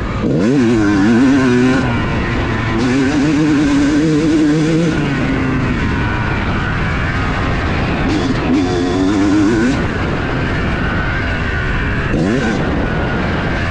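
2018 Yamaha YZ250's single-cylinder two-stroke engine revving hard and falling back over and over under riding load. Its pitch climbs sharply on the throttle just after the start and again near the end, over a steady rush of wind noise.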